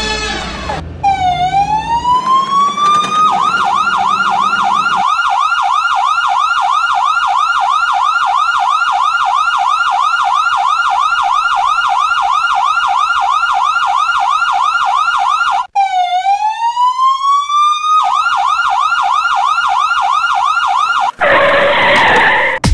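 Electronic ambulance siren. It opens with a rising wail, then switches to a fast yelp of about three sweeps a second. It cuts out briefly, wails up again and goes back to the yelp. Near the end a short burst of rushing noise takes over.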